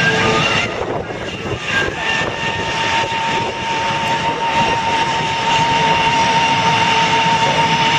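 Boeing F/A-18 Hornet jet engines running on the ground at engine start: a steady broad jet rush, with a steady high whine that comes in about three seconds in and holds.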